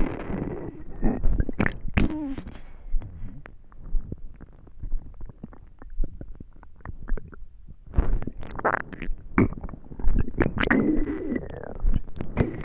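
Human stomach growling and gurgling from hunger: irregular bubbly gurgles with wavering, squeaky pitched rumbles. They are busy in the first couple of seconds, sparser in the middle, and pick up again from about eight seconds in.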